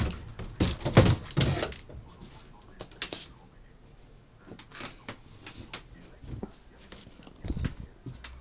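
Large cardboard box being handled and shifted: a string of knocks, bumps and scrapes on the cardboard, loudest in the first two seconds, with a dull thump near the end.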